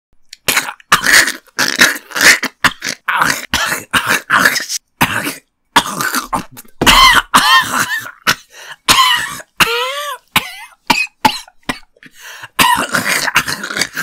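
A person's voice acting out exaggerated, demonic retching and gagging: a rapid string of short, harsh heaves, some in the middle drawn out into strained, wavering groans.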